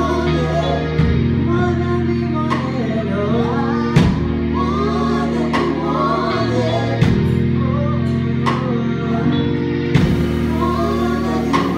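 Live band playing soul-gospel with a female lead vocal singing over held keyboard chords and drums, with drum accents every few seconds.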